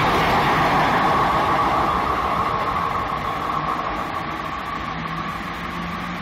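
Coaches of a passing express passenger train running by on the track, a steady rush of wheel and rail noise. It fades gradually as the tail of the train pulls away.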